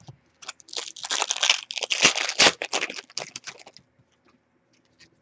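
Foil trading-card pack wrapper being torn open and crinkled: a dense run of crackling from about half a second in, stopping just before four seconds.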